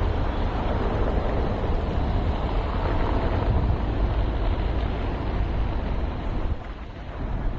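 Wind buffeting the microphone, a gusty low rumble, over the steady hum of city traffic.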